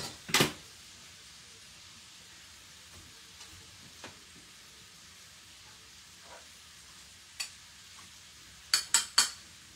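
Faint, steady sizzle from a stainless pan of chicken, cauliflower and squash cooking on an electric stove. Metal tongs are set down with a clank at the start, and there are a few quick clinks near the end.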